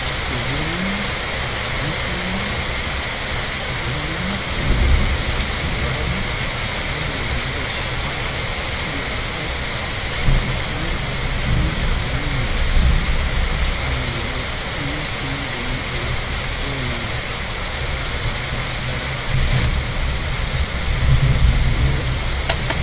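Steady rain falling, with a low rumble swelling up three times, about a fifth of the way in, near the middle and near the end.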